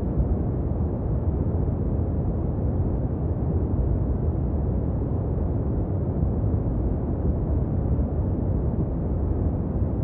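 Steady, deep rumbling noise that holds an even level, with no distinct sounds standing out.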